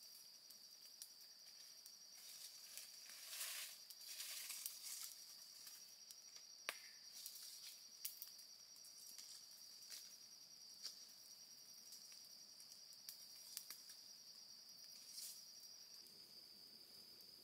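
Insects trilling faintly in one unbroken high-pitched note, with scattered light clicks and a brief rustle a few seconds in.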